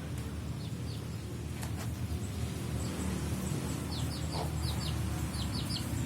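Free-range village chickens clucking, with a quick run of short, high, falling peeps about two-thirds of the way through, over a steady low hum.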